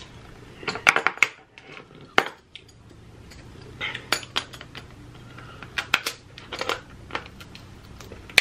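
Cooked lobster claw shell being cracked with a metal shell cracker: sharp cracks, crunches and metal clicks that come in several clusters as the tool is squeezed and repositioned.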